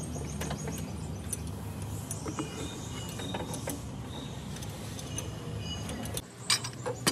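Light metallic clicks and clinks of hand tools and parts being handled, over a steady low hum that stops about six seconds in.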